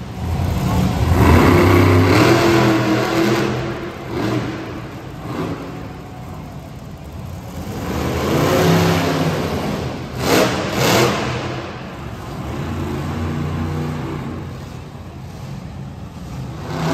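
Monster truck engine revving in three long swells, with two sharp bangs close together about ten seconds in.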